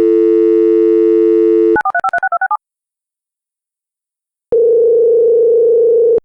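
Telephone dial tone for about two seconds, then a quick run of about eight touch-tone keypad beeps as a number is dialled. After a short pause, a steady ringing tone starts near the end as the call goes through.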